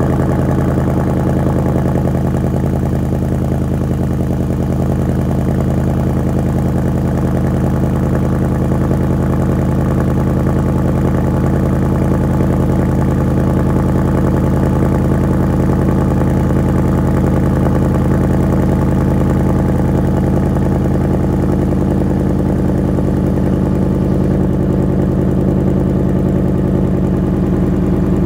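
A 2020 Ford Mustang GT's 5.0-litre V8 idles steadily from a cold start, heard at its quad-tip active exhaust with the valves in normal mode. The note shifts slightly near the end.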